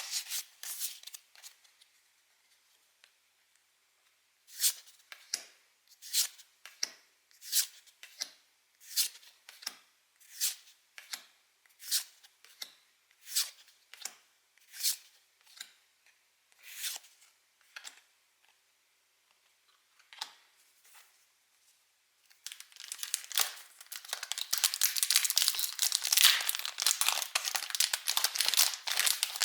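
Pokémon trading cards being handled one by one, a crisp flick about every second and a half, then a foil booster pack being torn open with a dense, continuous crinkling.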